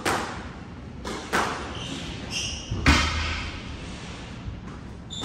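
Squash rally: the ball cracks off racquets and the court walls about four times, each smack echoing around the court, the loudest just under three seconds in with a low thud. Short high squeaks of shoes on the hardwood floor come between the shots.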